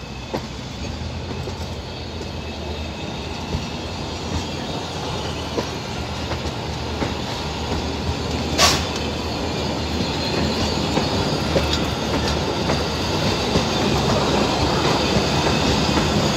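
Passenger train coaches rolling past, their wheels clicking over rail joints, growing louder throughout. About eight and a half seconds in there is one short, sharp burst of noise, the loudest moment.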